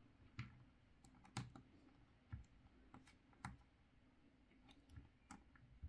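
Faint, irregular small plastic clicks and taps from a Black Series Imperial Snowtrooper action figure being posed by hand, its joints and feet knocking as the figure is set. About seven clicks in all, the loudest about a second and a half in.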